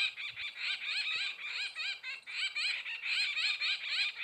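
Many small birds chirping at once: a dense, continuous chorus of rapid high chirps overlapping one another.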